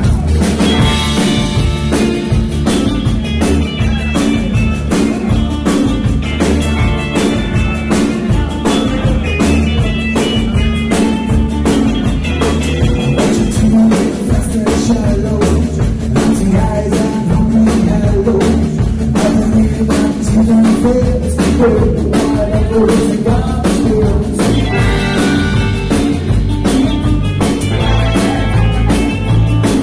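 Live rock band playing: two electric guitars, electric bass and drum kit, with a steady driving beat.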